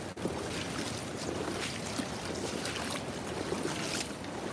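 Wading boots sloshing and splashing through shallow floodwater and sodden grass, over a steady rushing noise.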